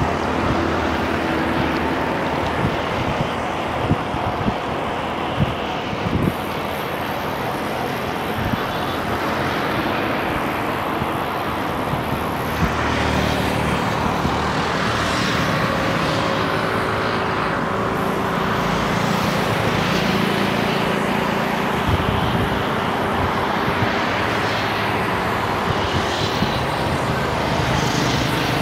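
Steady road traffic noise with vehicles passing, heard from a moving bicycle, with a few brief knocks about four and five seconds in.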